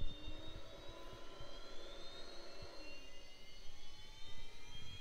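Gyro rotor of an aircraft artificial horizon spinning up just after power-on: a really noisy whine of several tones, all rising steadily in pitch, over a low rumble.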